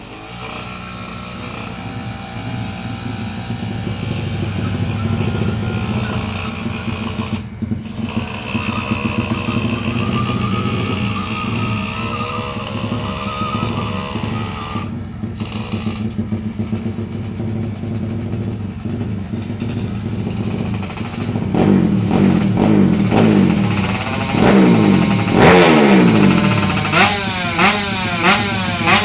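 Motorcycle engine running steadily after a tune-up, then revved up and down repeatedly over the last several seconds, the revs coming quicker near the end. The sound cuts out briefly twice in the steady stretch.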